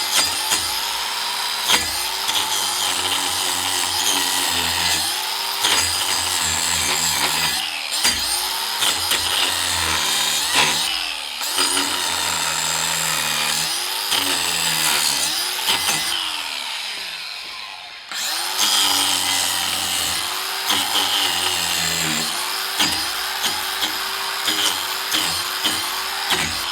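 DeWalt 18V XR cordless 4-inch angle grinder with a wood carving disc grinding into a log to strip its bark. Its motor pitch sags each time the disc bites into the wood and recovers as it lifts off. The motor briefly eases off about two-thirds of the way through.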